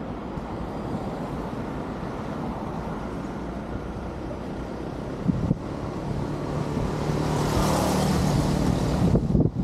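Steady road traffic noise, swelling as a motor vehicle passes close by in the second half, loudest near the end.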